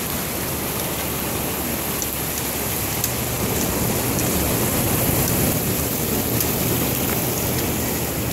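Steady wash of shallow surf over the sand, with wind on the microphone.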